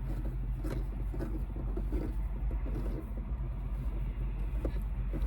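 Tractor diesel engine idling with a steady low rumble, a few faint knocks over it.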